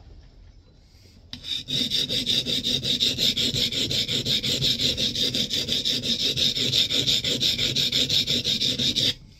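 Cambered steel scrub plane iron rubbed quickly back and forth on the coarse side of a Norton oilstone, an even scraping rhythm that starts about a second in and stops abruptly near the end. The bevel is being honed until a wire edge forms.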